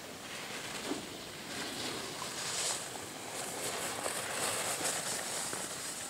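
Steady outdoor hiss, like wind across the microphone, with the upper hiss swelling a few times midway.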